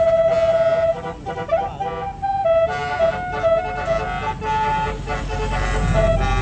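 Bus telolet melody horn (Basuri type) playing a tune: one held note, then a run of notes stepping up and down. A bus engine rumbles underneath and gets louder near the end.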